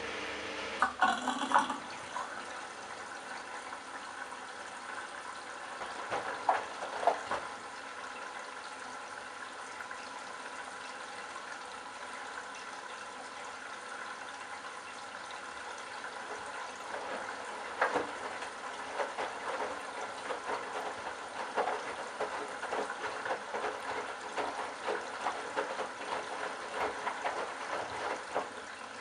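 Candy Bianca front-loading washing machine tumbling a wash: the drum turns with water and laundry sloshing inside, and irregular splashes and thumps stand out over a steady wash noise.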